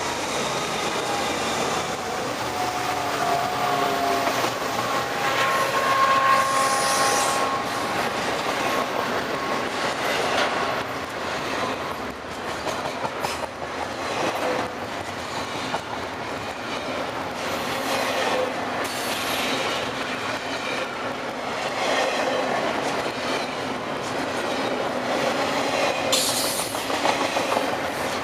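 Intermodal freight train rolling past: a steady rumble with repeated clacking of wheels over the rail joints, and thin squealing tones from the wheels during the first several seconds.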